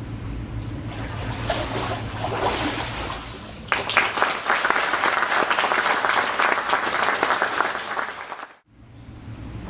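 A congregation applauding, a dense patter of many hands clapping that swells in about four seconds in and cuts off abruptly near the end.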